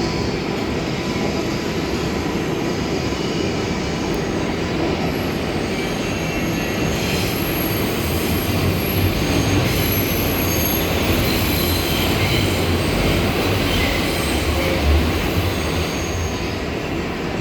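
New York City Subway R142A train running on the rails: a steady rumble with thin high-pitched wheel squeal coming and going, the low rumble growing louder through the middle.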